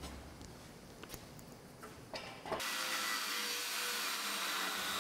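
A few faint taps, then, about two and a half seconds in, a cutoff wheel starts grinding steadily through a steel truck frame rail, a hissing grind with a faint steady tone, cutting out the opening for a frame C-notch.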